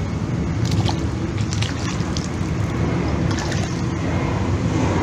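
Water splashing and sloshing as a hooked pacu thrashes at and just above the pond surface while it is drawn in on the line, with scattered short splashes over a steady low rumble.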